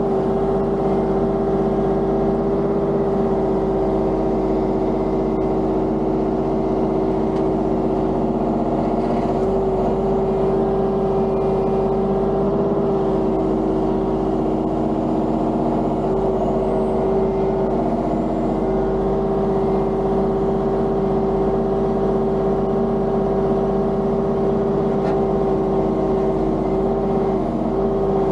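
Mini excavator's diesel engine running steadily at working revs while digging, with small dips in pitch now and then.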